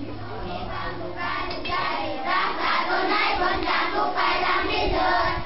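A group of children chanting in unison, a steady rhythm of syllables from many voices together. It comes in about a second in and cuts off abruptly.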